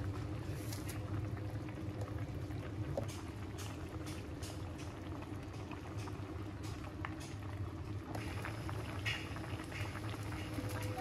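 Food cooking on the stove, bubbling steadily with scattered crackles, over a low steady hum.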